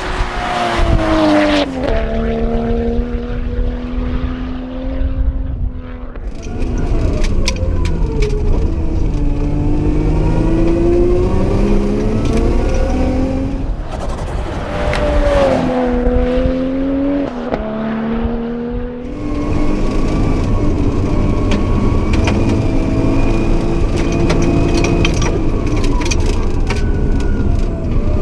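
Nissan Skyline R32 GTS-t's turbocharged straight-six accelerating hard, its pitch climbing and then dropping sharply several times as it changes gear, with scattered sharp clicks and pops over the engine note.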